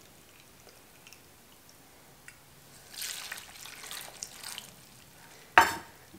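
Apple cider vinegar poured from a metal measuring cup into a pan of diced vegetables, a short splashing pour about three seconds in. Near the end, a sharp clack as the metal measuring cup is set down on a wooden cutting board.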